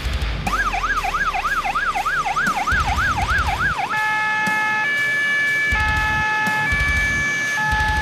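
Fire engine's electronic siren: a fast rising-and-falling yelp for about three and a half seconds, then switching to a sequence of held horn-like notes that step between pitches about once a second. A low rumble comes and goes underneath.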